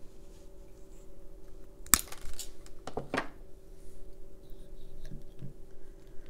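A sharp snap about two seconds in as a wooden diffuser stick is cut with cutting pliers, followed about a second later by two lighter clicks, then a few faint taps of the sticks going into the bottle, over a faint steady hum.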